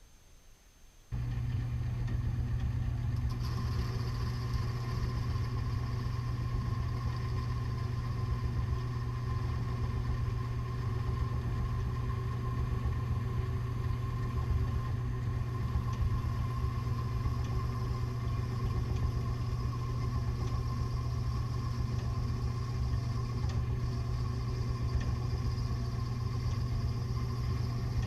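A machine motor switches on about a second in and runs steadily with a low hum and a faint higher whine.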